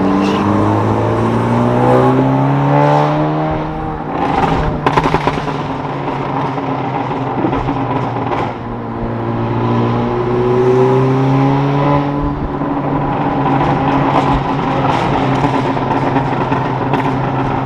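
2017 Honda Civic Si's turbocharged 1.5-litre four-cylinder, tuned and running a catless downpipe, heard from inside the cabin revving up in second gear. About four seconds in it eases off with a short burst of crackling pops, then pulls up again and holds a steady drone.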